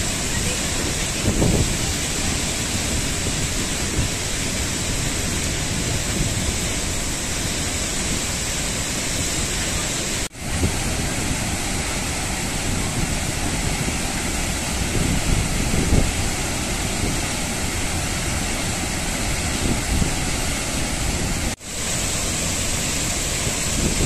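Athirappalli Falls, a large waterfall in heavy flow, making a loud, steady rushing noise of falling water. The sound cuts out for an instant twice, about ten seconds in and near the end.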